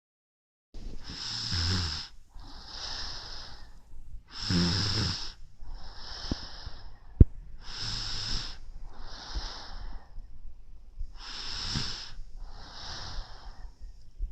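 Snoring: slow, regular breaths alternating louder and softer, about four cycles, each breath airy, with a low rattle near the peak of the louder ones. A single sharp click about seven seconds in.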